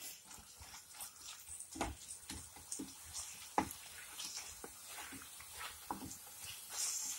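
Wooden spatula stirring thick onion-tomato masala in a nonstick pan: faint, irregular scrapes and taps.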